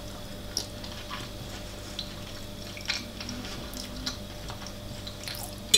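Quiet eating: a few faint, wet clicks of chewing, scattered over a low steady hum.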